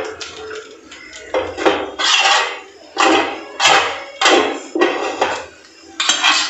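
Steel spoon scraping and stirring a thick Oreo-and-milk mixture in a non-stick pan, in about eight separate scraping strokes.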